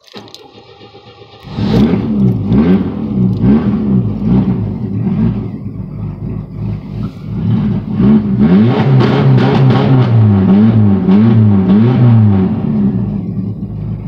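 Flooded Chevrolet Cavalier engine cranking briefly with the accelerator floored, then catching about a second and a half in and running rough, its revs rising and falling over and over before steadying near the end. The flooding comes from leaky fuel injector seals, which the owner blames for it.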